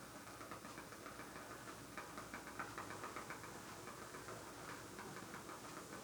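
Candle flame crackling faintly like a small wood fire: a quick, irregular run of tiny pops over a soft hiss, thickest a couple of seconds in.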